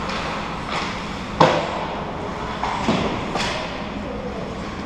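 Ice hockey play on the rink: a few sharp knocks and thumps of sticks, puck and skates on the ice and boards, the loudest about one and a half seconds in, over a steady arena background.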